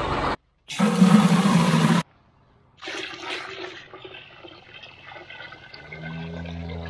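A tractor engine runs for about a second and a half, cutting out twice. Then water pours from a plastic bucket into a tub, splashing and trickling steadily.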